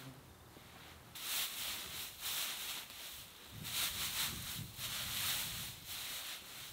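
Dry cut grass rustling as it is handled and spread by hand for bedding, in a run of irregular swishes starting about a second in.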